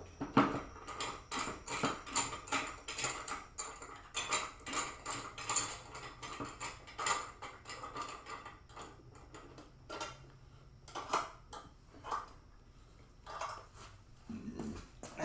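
Irregular metallic clicks and clanks, several a second at first and sparser later, as a C-clamp is fitted and tightened to hold the workpiece.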